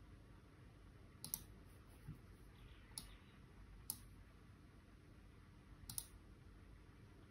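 Faint computer clicks from a laptop, over near-silent room tone: a quick double click about a second in, single clicks about three and four seconds in, and another double click about six seconds in.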